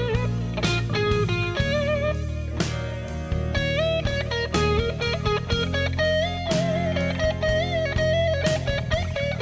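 Blues lead electric guitar from a Fender Telecaster through a Carvin Vintage Series all-tube amp: single sustained notes with string bends and vibrato, over a backing with drums.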